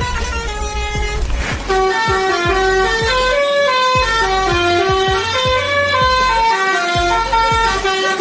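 A truck's musical horn playing a tune in loud, stepped horn notes that change several times a second, over a low thump repeating about twice a second.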